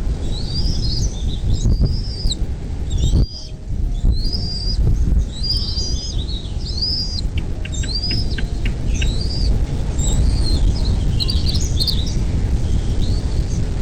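Birds chirping over and over in short, arched high notes, with a quick run of about eight ticks a little past the middle. A steady low rumble lies under the calls.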